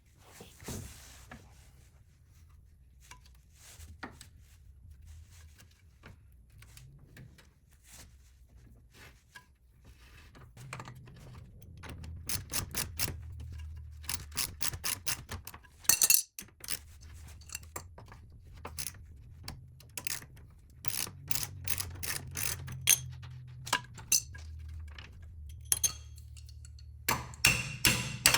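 Ratchet wrench clicking in quick, evenly spaced runs, with scattered metal clinks, as the 21 mm nut on a lower control arm bolt is worked off. The clicks are sparse for the first several seconds and come in rapid runs from about twelve seconds in.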